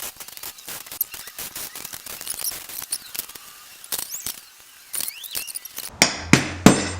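Ratchet and socket working the 10 mm valve cover bolts off an engine: scattered metallic clicks and clinks with a few short squeaks. About six seconds in, a faster, louder run of regular ratchet clicks starts, about three a second.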